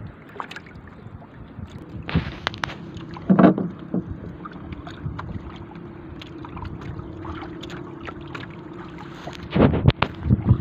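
Water lapping around a small paddle boat (bangka) lying still on the water, with a faint steady hum. A few knocks and splashes stand out, the loudest about three and a half seconds in and a cluster near the end.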